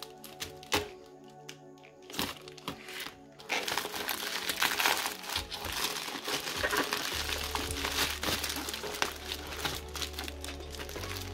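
Plastic poly mailer bag being slit open with a knife, giving a few sharp clicks, then crinkling and rustling loudly from about three and a half seconds in as hands open it and pull out a small cardboard box. Background music plays underneath.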